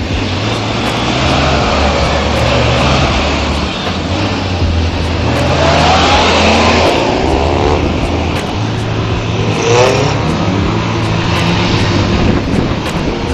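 Motor vehicle engine running on the road, its pitch rising as it speeds up about five seconds in and again near ten seconds.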